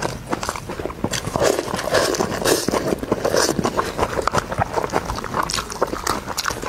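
Close-miked eating sounds: wet chewing and lip smacking on braised meat, mixed with the tearing of meat and the crinkle of thin plastic gloves as it is pulled apart by hand. Many small irregular clicks, with no steady rhythm.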